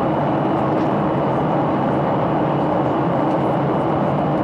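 Steady in-flight cabin noise of a jet airliner: engine and rushing-air noise heard through the cabin wall by the window, with a faint steady high whine.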